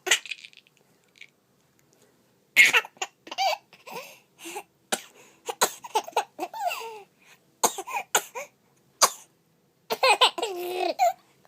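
A baby coughing and laughing: after a quiet start, a run of short coughs mixed with high-pitched laughing squeals begins about two and a half seconds in, with a longer laughing sound near the end.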